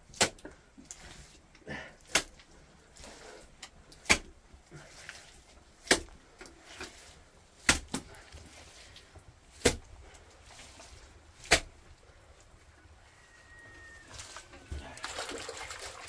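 Water dripping at a steady pace indoors, a sharp drip about every two seconds, typical of rain leaking through a roof.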